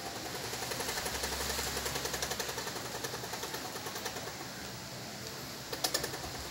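Squirrel chattering: a rapid, even run of pulses that swells about a second in and fades by about four seconds. Two sharp clicks near the end.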